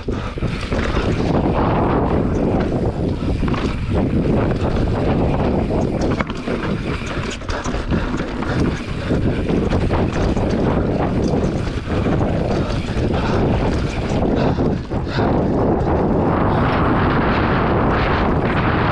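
Heavy wind noise on the microphone of a rider on an off-road enduro motorcycle, with the engine running underneath and frequent short knocks.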